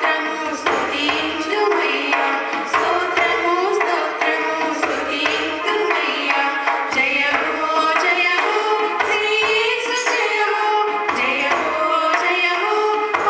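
A small group of women singing a song together into microphones, with a drum beat underneath.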